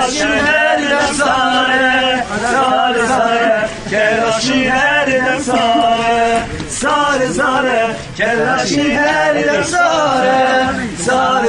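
A group of men singing a Kurdish folk song together for a halay line dance, in phrases a second or two long with short breaks between them.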